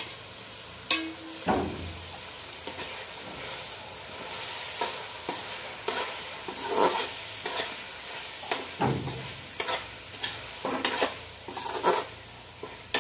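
A slotted metal spoon stirring diced potatoes into thick masala gravy in a metal kadhai, with irregular scrapes and clinks against the pan over a steady sizzle from the cooking gravy.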